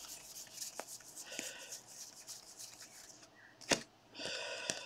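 Stack of baseball cards being thumbed through by hand: faint rubbing and soft flicks as the cards slide over one another, with one sharper click near the end.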